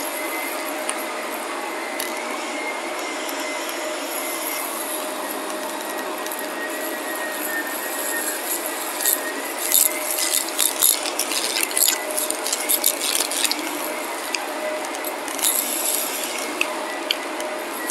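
Upright vacuum cleaner running over carpet: a steady motor whine and airflow. About halfway through, and again near the end, crackling and rattling of fine grit and dirt being sucked up the nozzle join in.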